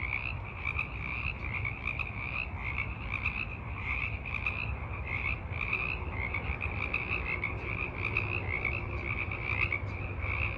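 A dense chorus of many frogs calling over one another, short repeated notes overlapping without a break, over a steady low rumble.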